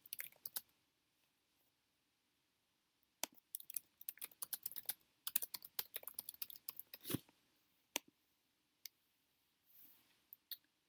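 Typing on a computer keyboard: a few key clicks at the start, a quick run of keystrokes from about three to seven seconds in, then a few single clicks.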